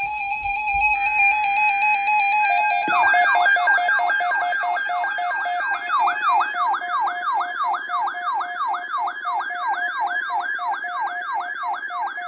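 Electronic emergency alert tone for a tornado watch: a few seconds of steady held tones, then from about three seconds in a siren-like warble of fast repeating pitch sweeps, about three a second, over held tones.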